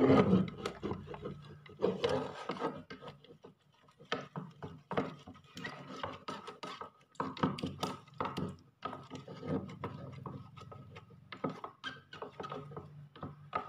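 Wooden ice-cream stick stirring white glue and water in a clear plastic tub: irregular scraping and tapping of the stick against the plastic.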